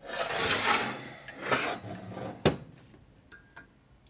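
A Harley Evolution engine crankcase being shifted and turned on a stainless-steel bench top: a long scrape of metal sliding on metal, a shorter second scrape, then a sharp knock about two and a half seconds in as it is set down, and a couple of light metallic clicks.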